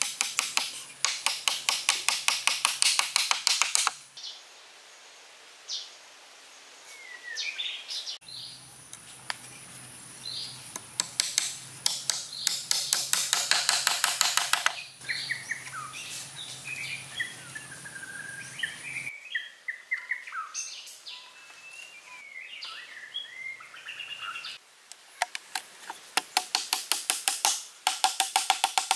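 A wooden stick used as a mallet tapping rapidly on wooden slats, several blows a second, in three bursts as pieces are knocked into place. Birds chirp between the bursts.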